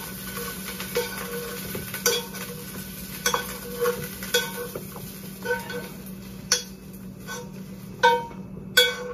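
Food sizzling in a frying pan while a utensil stirs it, with irregular clinks and scrapes of the utensil against the pan.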